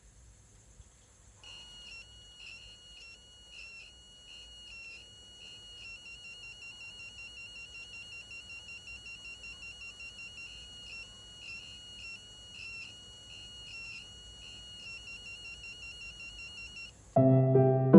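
Electronic buzzer in a homemade LED-and-buzzer circuit beeping a high tone on and off. It starts about a second and a half in with slower, uneven beeps, then pulses more quickly at about four a second from the middle on. It stops shortly before the end, where piano music comes in.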